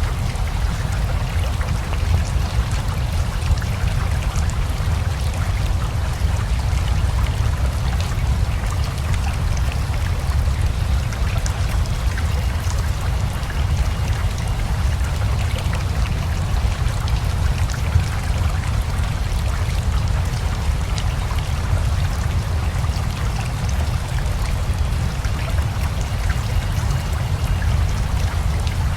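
Rain falling over a running river: a steady, even rush of water with a deep low rumble and fine scattered drop ticks through it.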